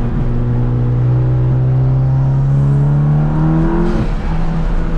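Big-turbo MK7 Golf GTI's turbocharged 2.0-litre four-cylinder pulling hard under acceleration, heard from inside the stripped cabin: the revs climb steadily, then drop sharply about four seconds in as it shifts up.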